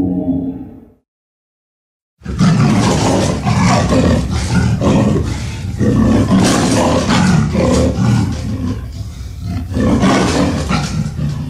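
Tyrannosaurus-style monster roar sound effect: a loud, rough, rasping roar that starts about two seconds in and swells and pulses unevenly throughout. Before it, the end of a low pitched call fades out, followed by a moment of dead silence.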